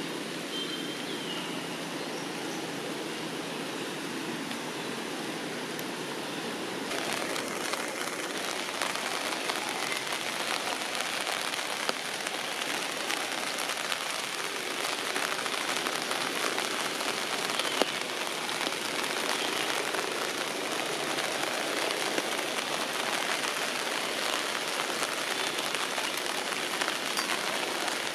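Steady hiss of rain falling on tree foliage, becoming denser about seven seconds in.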